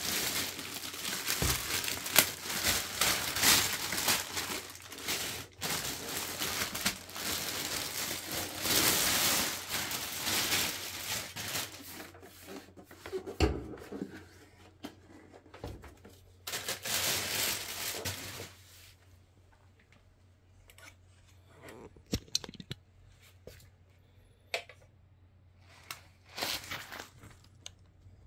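Packaging being unwrapped: plastic wrapping rustling and crinkling, with tearing sounds, for most of the first two-thirds. Then only scattered light taps and knocks.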